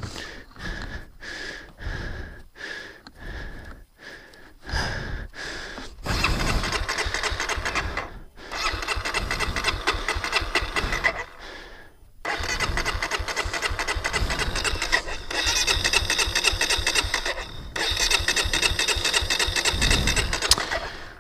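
Electric starter cranking the 2017 Honda CRF250L's single-cylinder engine in four long attempts with short pauses between, the engine turning over without catching: the rider takes it to be flooded.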